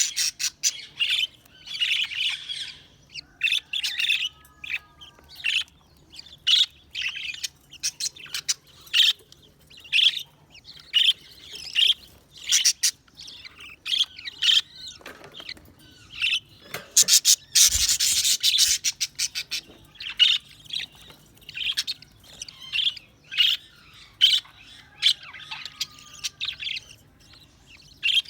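Budgerigars chirping and chattering in quick, scratchy calls with a few warbled notes, and a louder, noisier burst of sound a little past halfway.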